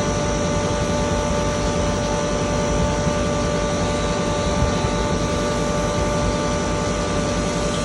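3 HP single-phase double-chamber turmeric grinder running steadily: a loud, even mechanical din with a steady high whine over it.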